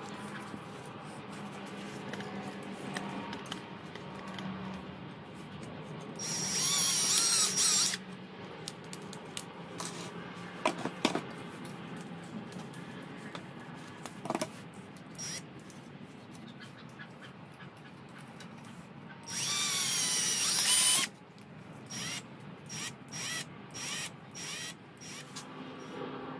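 Cordless drill motor running in two bursts of about two seconds each, its pitch wavering as the trigger is squeezed, then about five short trigger blips near the end. Sharp clicks of handling sound in between.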